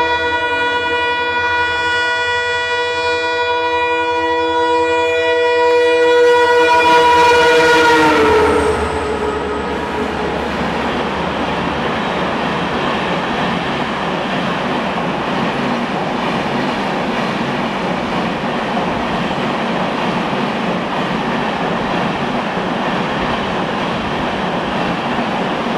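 WDP-4D diesel locomotive sounding a long, steady multi-tone horn as it approaches at speed, the horn dropping slightly in pitch as the locomotive passes, about eight seconds in, and then stopping. The LHB coaches of the express then run through at about 100 km/h, with a steady noise of wheels on rails.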